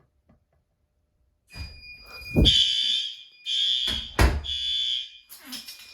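Building fire alarm horns sounding in repeated pulses (three pulses, then a longer pause) after a heat detector is set off in a test. Two heavy thuds cut through the horns as a door held open by the alarm system releases and swings shut.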